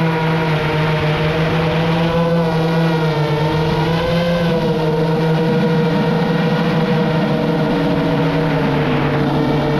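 FPV quadcopter's electric motors and propellers whining steadily, recorded on the drone's onboard camera; the pitch dips and rises gently a few times with throttle changes, over a rushing noise.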